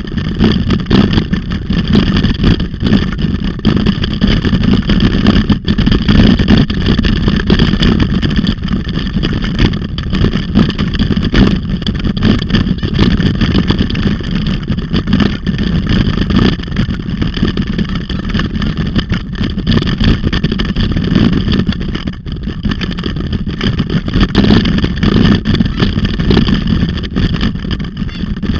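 Steady loud rumble of wind and rolling noise on a handlebar-mounted camera as a bicycle is pulled fast over a dirt forest trail, the tyres and rattling bike giving a dense low noise without let-up.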